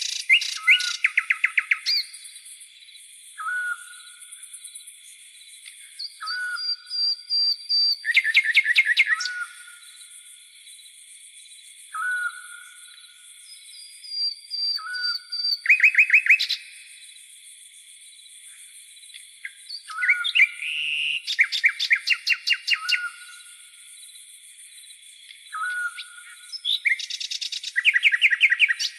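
Tropical forest birds calling: short hooked whistles repeat every few seconds, and several times a bird breaks into a quick burst of rapid trilled notes. Beneath them runs a constant high-pitched drone of crickets.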